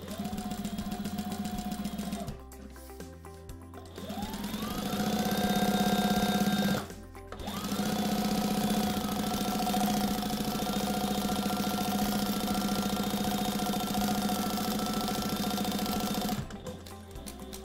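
Sailrite Fabricator industrial walking foot sewing machine stitching through fabric test pieces. A short run comes first, then a pause, then the motor winds up with a rising whine and stops sharply. It winds up again and runs steadily for about nine seconds before stopping.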